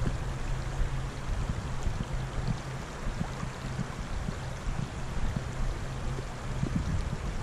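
Small stream flowing over shallow riffles in a steady rush of water, with a low rumble of wind on the microphone.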